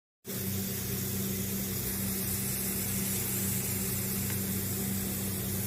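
Hot oil sizzling steadily as mashed-potato and rice-flour snacks shallow-fry in a pan, over a steady low hum.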